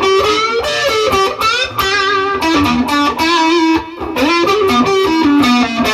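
Epiphone Les Paul Special II electric guitar played through a clean amp setting, a run of single-note melodic lines with some notes wavering in pitch.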